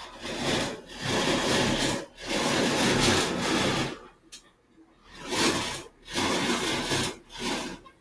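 Handling noise from a sheet of drawing paper being moved about right at the microphone: a run of loud rubbing, scraping sounds with a pause about halfway through.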